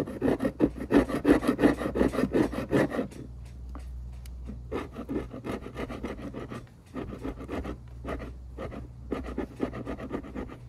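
Hand tool scraping old caulk out of a fibreglass sailboat's window-frame seam: quick repeated scraping strokes in runs, with short pauses about three seconds in and again around the middle.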